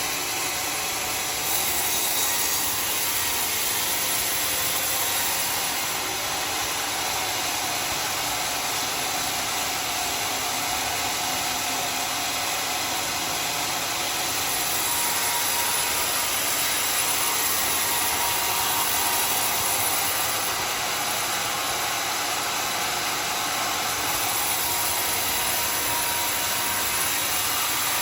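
Homemade sawmill running and sawing through dry, very hard acacia wood: a steady machine noise that holds an even level throughout.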